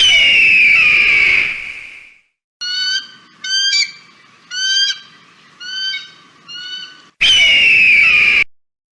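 Eagle calls: a long, harsh scream falling in pitch, then five shorter piping calls, then a second scream that cuts off abruptly.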